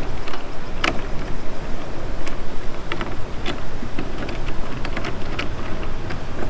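Clicks and knocks of hard plastic pool fittings being handled and fitted while the waterfall is mounted, over a steady low rumble.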